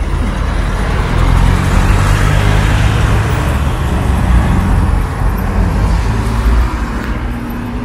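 A minibus drives past close by, its engine and tyre noise swelling and then fading, with a car following behind in the street traffic.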